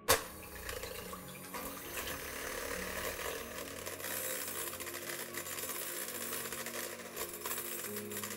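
Electric hand mixer whipping egg whites in a glass bowl: the motor whirs steadily and the wire beaters rattle and tick against the glass, starting with a sharp click. The whites froth up into foam.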